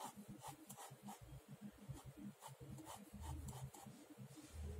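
Pen drawing on paper: a series of short, faint scratchy strokes, with a low rumble from the hand and sheet moving on the desk in the second half.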